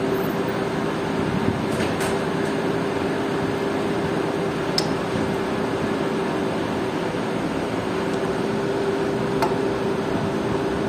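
Steady machine drone with a constant hum, with a few light clicks of tools or metal parts now and then.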